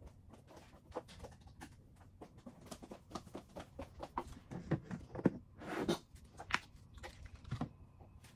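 Light knocks and clatter of small objects being picked up and set down on a counter, with a brief scraping rustle just before six seconds in.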